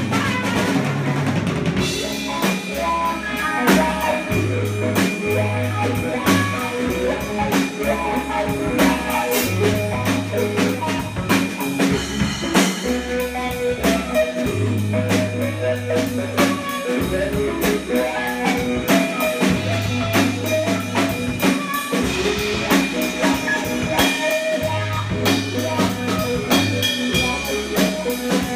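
Live band jamming instrumentally: a drum kit keeps a steady groove on snare and bass drum under two electric guitars and a trumpet, with long held low notes and no singing.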